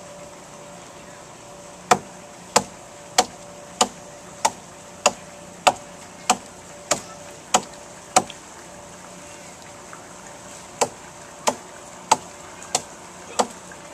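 A hand tool's blade chopping into a wooden log to hollow out a canoe hull: sharp, regular strikes about one and a half a second, eleven in a row, then a pause of about two seconds and five more.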